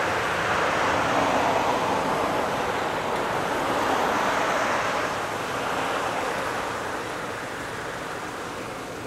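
Jet engine noise of a Boeing 777-200 climbing away after takeoff: a steady rushing roar that slowly fades over the last few seconds as the airliner draws away.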